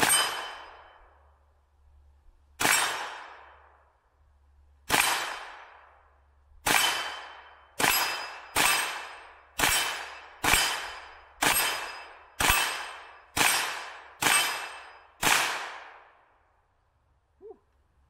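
Thirteen 9mm shots from a Kel-Tec Sub 2000 carbine, each followed by the ring of an AR500 steel gong target being hit. The first three shots come a couple of seconds apart, the rest about one a second.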